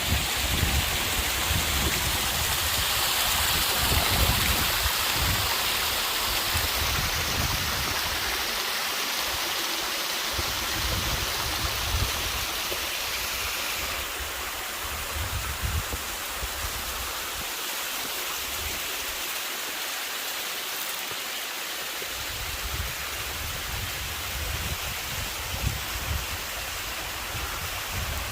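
Steady rushing of a mountain waterfall, an even hiss of falling water with an uneven low rumble beneath it.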